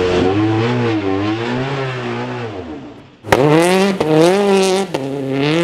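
Peugeot 208 T16 rally car's turbocharged four-cylinder engine revving up and down, fading almost away about three seconds in. The engine then cuts in suddenly and loud under hard acceleration, with a brief break in the engine note about five seconds in before it pulls on.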